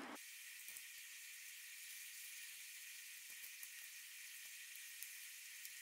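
Faint steady hiss with scattered soft clicks and crackles as fingers tear apart smoked chicken in a foil-lined tray.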